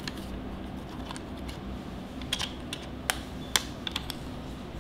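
Sharp plastic clicks and taps from handling a small LED video light's battery compartment and AA batteries: a scattered handful in the second half, the loudest about three and a half seconds in, over a steady low hum.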